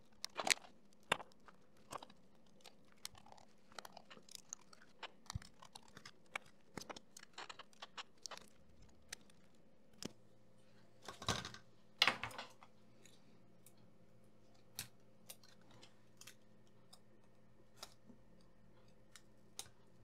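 Scattered small clicks, taps and light knocks of a screwdriver and hands working inside a laptop, unscrewing and lifting out plastic and metal parts, with a couple of louder knocks near the middle. A faint low hum comes in about halfway.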